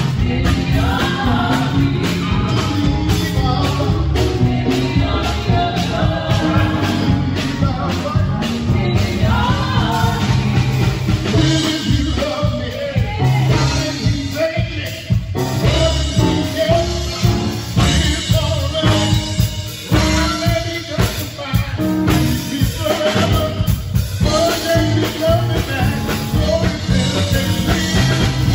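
Live gospel praise music: singers on microphones backed by a band of keyboard, electric bass guitar and drum kit, playing with a steady beat.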